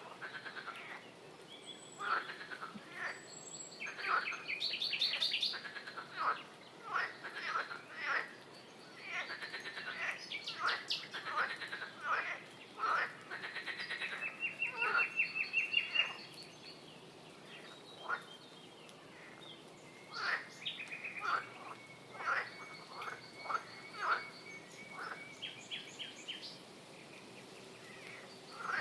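Chorus of frogs calling: many short, overlapping croaks, with a few longer pulsed trills among them, one held steady and high for about two seconds halfway through.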